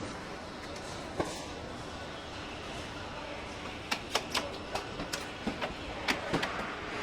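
Car assembly-plant ambience: a steady machinery noise. One sharp click comes a little over a second in, then a quick, irregular run of about a dozen clicks and knocks in the second half.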